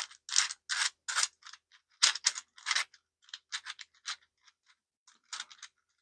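A 3D-printed PLA Rubik's cube being turned by hand: its dry, unlubricated plastic layers click and scrape in quick bursts, busiest in the first three seconds and sparser after.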